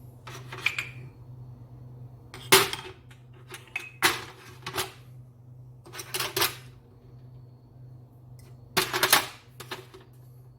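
Hard objects clattering and knocking, about six short sharp clatters at uneven intervals, loudest about two and a half seconds in and again near the end, over a steady low hum.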